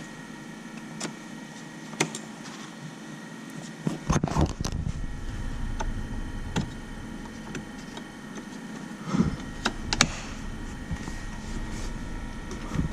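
Interior trim piece being handled and pressed into place: scattered clicks and knocks of plastic trim, loudest about four seconds in and again near nine to ten seconds, over a low steady rumble.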